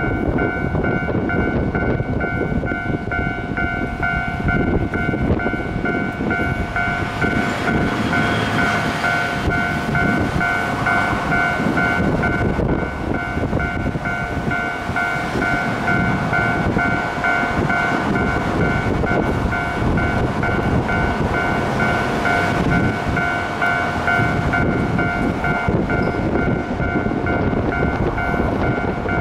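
Japanese railway level-crossing alarm dinging over and over in rapid even pulses, while a Keio Line train rumbles past over the rails with a clickety-clack of wheels.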